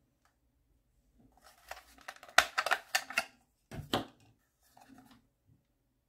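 Plastic battery compartment cover being pried and slid off the back of a Maisto Tech RC remote-control transmitter: a cluster of plastic clicks and scrapes, loudest about two and a half seconds in, then a sharper snap about four seconds in.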